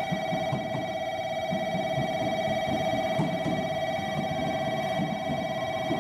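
JR Kyushu 817 series electric train rolling slowly into the platform, its wheels and running gear giving a low rumble. Over it sounds a steady electronic tone made of several pitches that stays level throughout.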